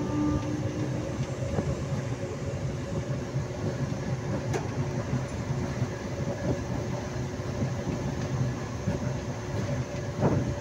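Moving train heard from an open coach doorway: the steady rumble of wheels running on the rails, with a couple of sharp clacks, one near the middle and one near the end.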